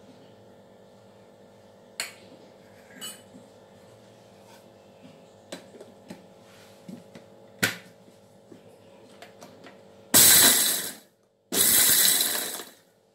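Panasonic mixer grinder run in two short bursts of about a second each, grinding roasted gram and jaggery into a fine powder, its motor cutting out between them. Before that, a few sharp metal clinks as the steel jar and its lid are handled.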